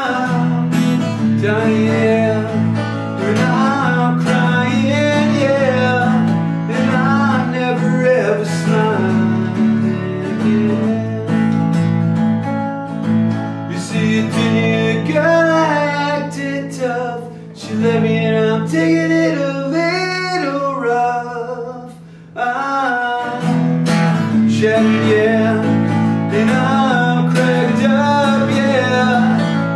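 Acoustic guitar strummed while a man sings. A little past halfway the strumming stops on a held chord for a few seconds under the voice, then picks up again.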